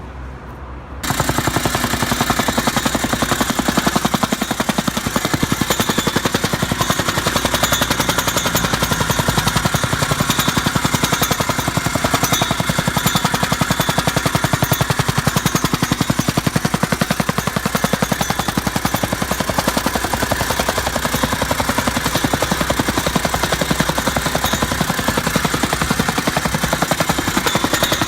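Meiwa RT-70F tamping rammer, driven by a Honda GX120 engine, breaking into steady, rapid, loud pounding about a second in, at about ten blows a second.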